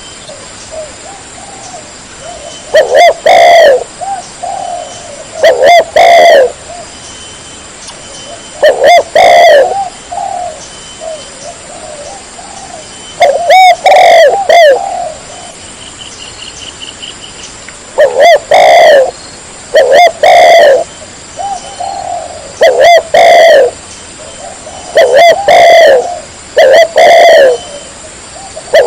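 Spotted dove cooing loudly, with short groups of low coos repeated every two to four seconds.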